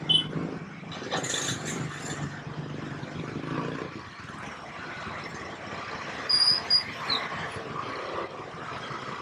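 Many motorcycles and scooters running at low speed as they cross the railway tracks together, engines overlapping. Two short, high-pitched beeps stand out about six and a half seconds in.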